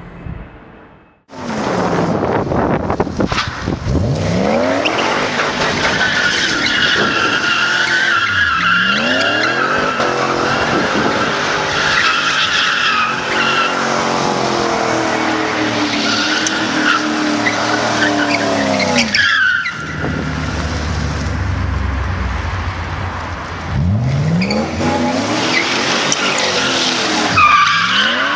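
Mercedes-Benz 500E's 5.0-litre V8 revving hard, its pitch climbing and falling again and again, while the rear tyres squeal continuously in smoky burnouts and donuts. The loud part starts about a second in.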